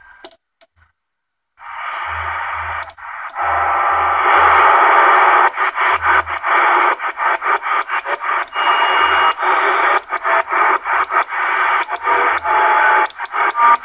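Uniden Grant XL CB radio receiving static through its speaker, almost pure noise, coming in about a second and a half in. As the channel selector is turned, the static breaks off briefly many times, with a few short whistles here and there.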